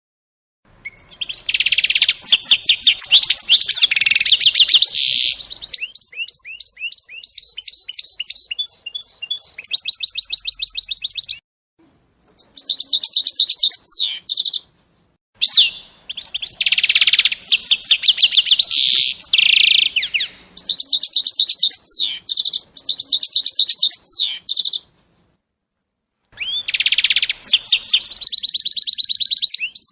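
A small songbird singing long, loud phrases of rapid trills and warbles, with a few short pauses between phrases.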